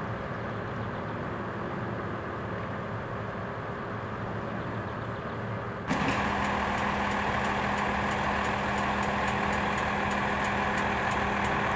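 Diesel engine of a tracked demolition excavator running steadily. About halfway through it suddenly becomes louder, with a steady low hum.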